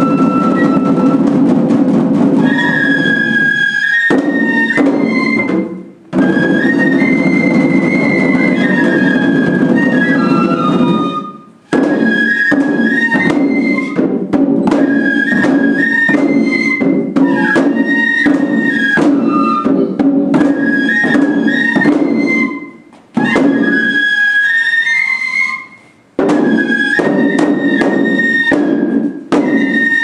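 Japanese folk lion-dance music: a high bamboo flute (shinobue) playing a stepping melody over dense, fast drumming on the dancers' drums. The drumming breaks off briefly several times while the flute carries on.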